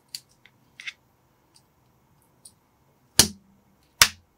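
Plastic Lego bricks being pressed together by hand: a few faint clicks, then two sharp, loud snaps about three and four seconds in.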